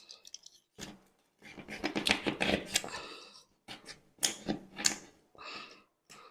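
Irregular sharp clicks and short scraping, rustling bursts of hand work on an upholstered panel, its fabric and foam being handled and cut.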